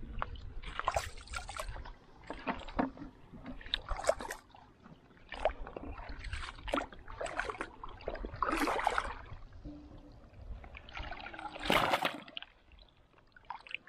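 Shallow seawater sloshing and splashing in irregular bursts as someone wades through ankle-deep water among rocks on a tidal reef flat. The loudest splash comes about twelve seconds in.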